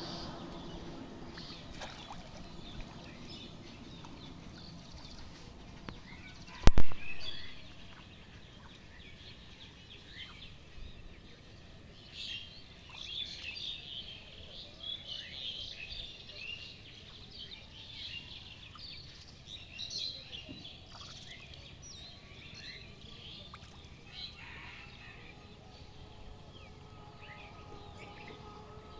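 Small birds chirping and calling in a rural wetland, busiest in the middle stretch. A single sharp, loud knock comes about seven seconds in, and a faint steady drone comes in near the end.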